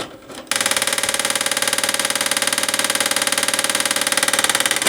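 Toshiba DVD/VCR combo's VHS deck mechanism buzzing loudly and steadily on eject, a motor-like drone with a fast flutter. It starts suddenly about half a second in and is the unexplained fault that ends with the machine shutting itself off.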